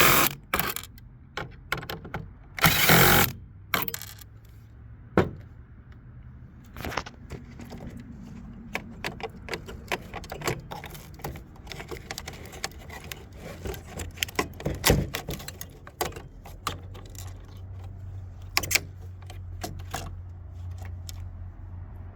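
Scattered clicks, taps and rattles of tools and metal parts being handled while a point-of-sale terminal's cast aluminium case is taken apart to reach the CPU. A short, loud scraping burst comes about three seconds in, and a low steady hum joins in the second half.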